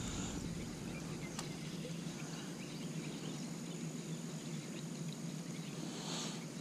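Insects calling in a steady high drone over faint outdoor background noise.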